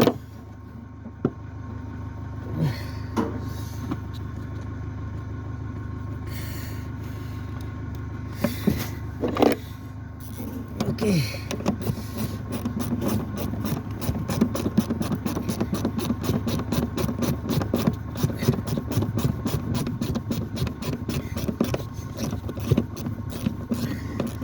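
Mini Cooper engine running, with a steady low hum and, from about halfway, a dense stream of rapid ticks over it.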